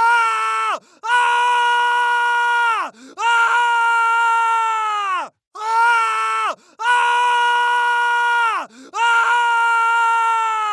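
Screams of pain: about six long, high cries in a row, each held at one steady pitch and then sliding down as it breaks off, with short gaps between.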